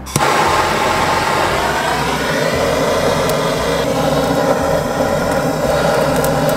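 Handheld Bernzomatic propane torch lit and burning with a steady, loud hiss, its flame held on lump charcoal to light it. The hiss starts suddenly right at the start.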